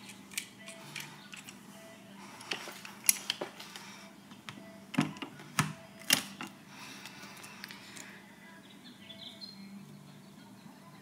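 Hand rivet nut gun being worked: scattered metal clicks and taps as a rivet nut is spun onto the tool's threaded mandrel and the gun is set in the hole, with a few sharper clacks about five to six seconds in.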